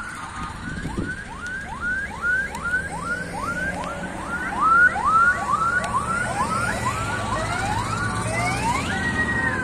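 Vehicle sirens sounding a repeated rising whoop, about two and a half a second, with a second siren overlapping from about halfway through. Near the end one gives a longer rising wail held high. Car engines run low underneath.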